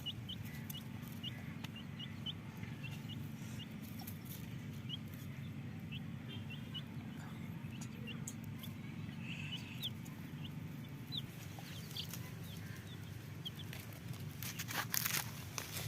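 Domestic chicks cheeping: many short, high peeps, scattered irregularly, over a steady low hum. A brief scratchy rustling noise near the end.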